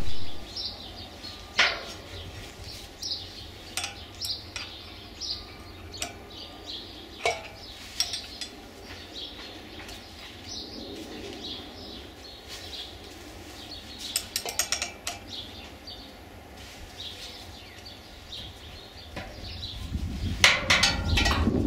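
Hand tool clinking and scraping against the steel motor shaft and hub of a squirrel cage blower wheel, in scattered small metallic clicks, while working to free a shaft seized in the hub. A louder run of rapid clicks comes near the end.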